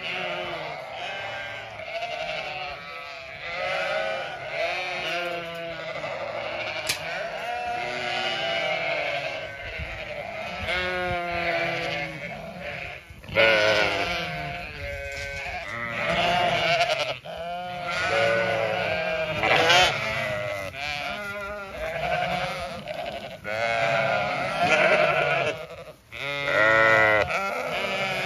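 A flock of Zwartbles ewes bleating, many overlapping, quavering calls from several sheep at once, one after another, with a few louder bleats standing out.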